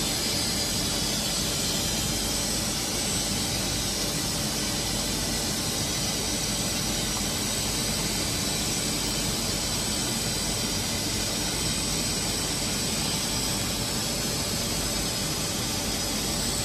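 Hermle C40U 5-axis machining center running while its trunnion rotary table swivels: a steady machine whir with a thin high-pitched whine over it.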